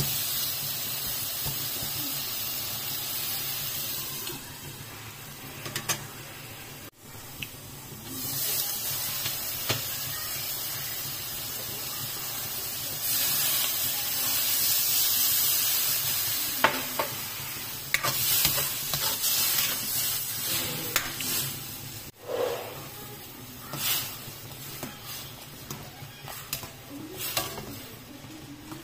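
Shrimp sizzling in a hot wok while a spatula stirs them. About halfway through, a louder hissing sizzle comes as water is poured into the hot pan. After that the spatula clacks and scrapes against the wok as the broth comes to a boil.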